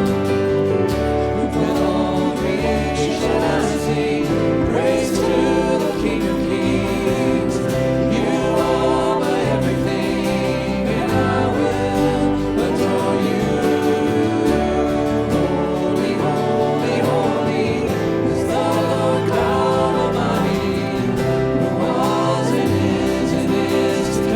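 Church worship music: voices singing together over sustained instrumental accompaniment, at a steady level.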